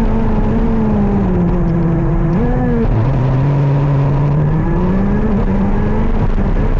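KZ 125 shifter kart's single-cylinder two-stroke engine at race speed: the engine note falls off for about two seconds, gives a short blip about two and a half seconds in, drops low, then climbs again from about four and a half seconds and holds high.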